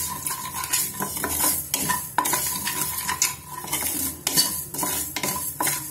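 Wooden spatula stirring dry-roasting mustard, fenugreek and cumin seeds in a metal kadai: repeated scraping strokes, about two or three a second, of wood and seeds against the pan.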